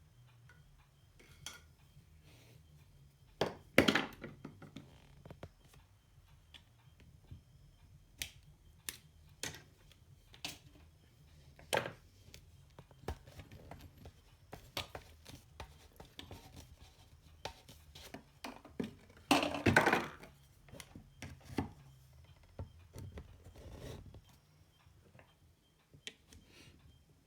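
Irregular clicks, knocks and scrapes of equipment being handled on a workbench, with two louder clattering bursts about four seconds in and about twenty seconds in, over a faint low hum.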